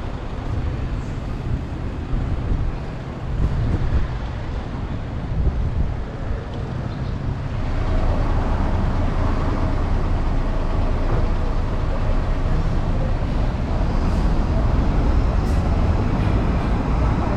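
City street traffic: cars and trucks passing on the road, a steady rumble of traffic noise.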